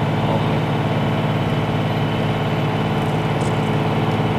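Pickup truck's Cummins diesel engine running at a steady drone with road noise, heard from inside the cab.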